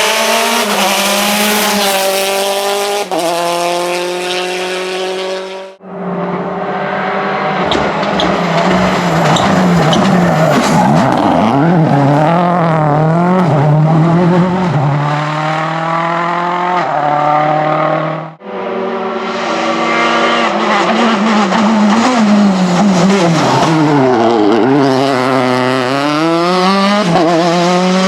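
Rally car engines revving hard on a special stage, the pitch climbing and dropping through gear changes and lifts. The sound comes as three separate runs, broken off sharply about 6 seconds in and again about 18 seconds in.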